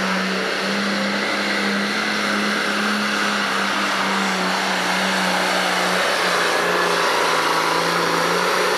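John Deere Pro Stock pulling tractor's turbocharged diesel engine running flat out under full load as it drags a weight-transfer sled, holding a steady pitch.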